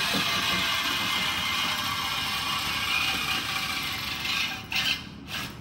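Mechanical tool running steadily with a hissing whir, stopping about four and a half seconds in, followed by a couple of short clattering knocks.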